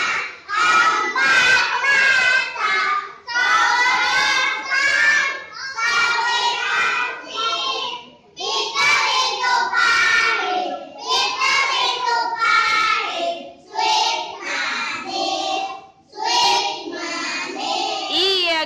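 A small group of young children singing together in unison, a bilingual English–Indonesian song naming the four tastes (sour, salty, bitter, sweet), in short phrases with brief breaks between them.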